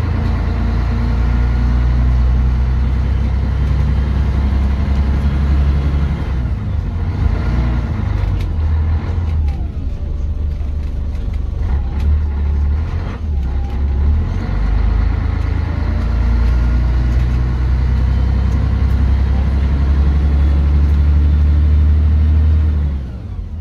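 Scania N113 double-decker bus's 11-litre six-cylinder diesel engine heard from inside the passenger saloon as the bus drives along: a deep, steady drone. It eases off about eight seconds in, builds again a few seconds later and drops away suddenly near the end.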